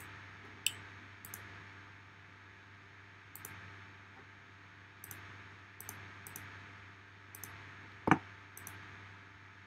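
Computer mouse clicking now and then, a dozen or so short sharp clicks spread over several seconds, over a faint steady hum. One duller, louder knock about eight seconds in.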